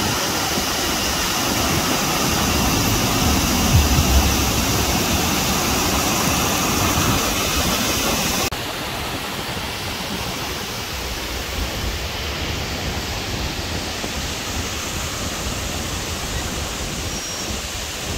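Waterfall: water rushing and splashing down over rocks, a steady, loud rush. About eight and a half seconds in it drops suddenly to a quieter, duller rush.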